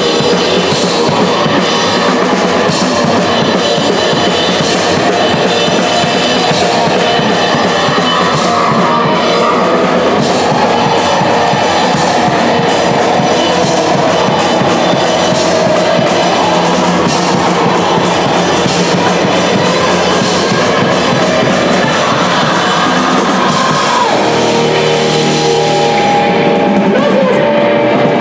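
Live punk rock band playing loud: a full drum kit pounding with crashing cymbals under distorted electric guitars and bass. Near the end the drumming stops and held guitar notes ring on.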